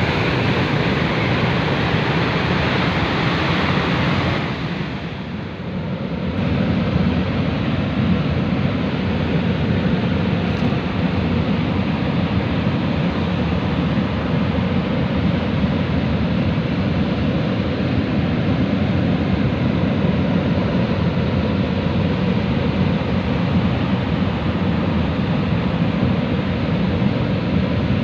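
Fast mountain river rushing steadily over rocks, with a short dip in loudness about five seconds in.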